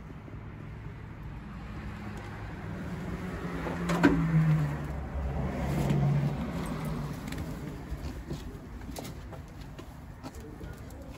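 A vehicle passing on the street, swelling and then fading over a few seconds, with a sharp click as it peaks.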